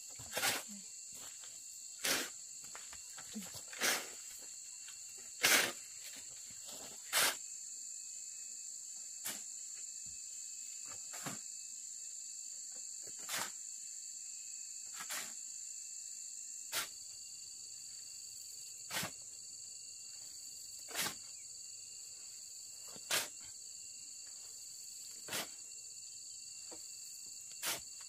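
Steady high-pitched insect chorus of crickets or cicadas, with a sharp knock about every two seconds, the knocks louder in the first several seconds and softer after.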